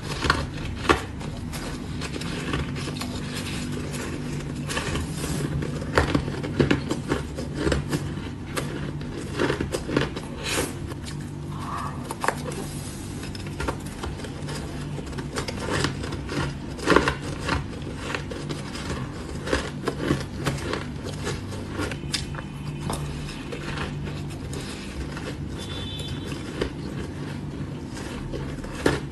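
Close-miked crunching of shaved ice being bitten and chewed, with a metal spoon scraping and clinking in a metal bowl; irregular crisp crunches throughout over a low steady hum.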